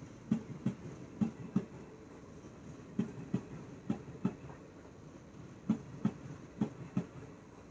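Passenger train wheels running over rail joints: a steady rumble with clickety-clack knocks that come in pairs, each pair a third of a second apart, as successive axles cross the joints.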